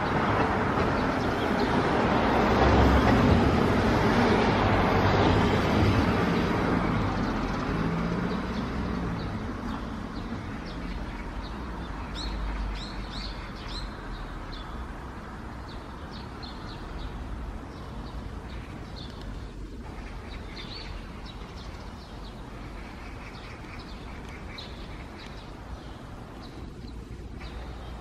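A vehicle passes, its engine and road noise swelling and then fading away over the first several seconds. Afterwards small birds chirp repeatedly over a low, steady traffic rumble.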